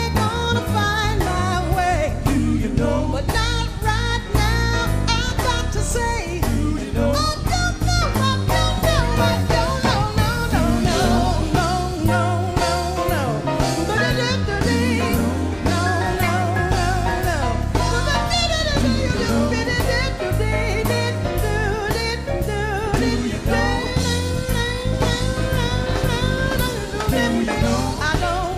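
Live jazz band, drums and bass under a woman singing wordless, improvised vocal runs that slide and waver in pitch.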